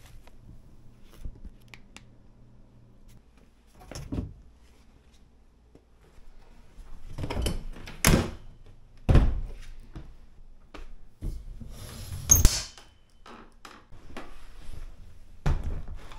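A string of separate thunks and knocks, with scraping between them, from things being handled and set down in a small room. The loudest come in the middle, and a plastic storage tote is lifted near the end.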